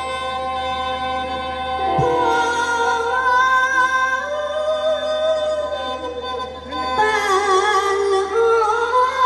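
Mor lam singing: a solo voice sings long, sliding, wavering melodic lines over steady held accompaniment chords. The voice comes in about two seconds in, dips briefly past the middle, and returns strongly a little later.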